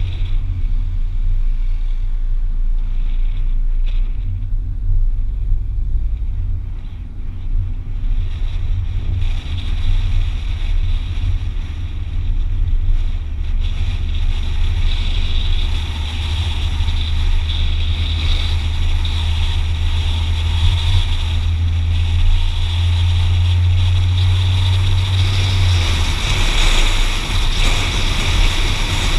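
A car's engine and tyres heard from inside the cabin while driving slowly, a steady low drone that eases off a few seconds before the end.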